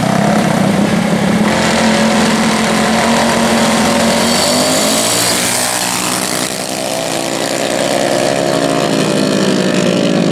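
Minibike engines, small single-cylinder motors, running hard at full throttle as the bikes launch and race down the street. The engine note swells as a bike passes close, then its pitch bends and eases as the bikes pull away.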